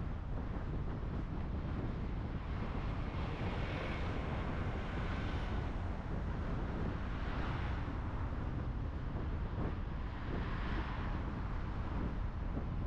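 A car driving through city streets: a steady low road rumble with wind buffeting the microphone, and the noise swelling three times as traffic passes or the wind gusts.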